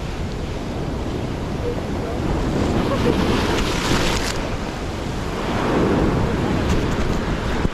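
Ocean swell surging and breaking in white water against a rock ledge, with wind buffeting the microphone. The surge builds twice, about three seconds in and again about six seconds in.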